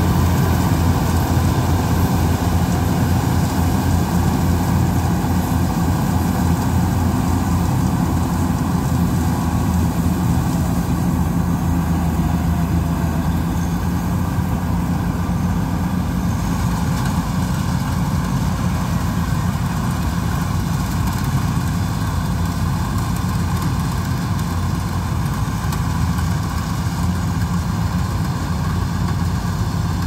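Kubota DC-95 rice combine harvester's diesel engine running steadily as the machine travels away, its drone fading slightly.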